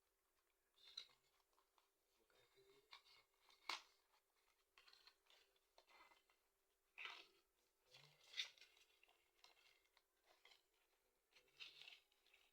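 Faint handling of a smartphone's retail box and packaging: scattered rustles, taps and clicks, the sharpest at about four and eight seconds in.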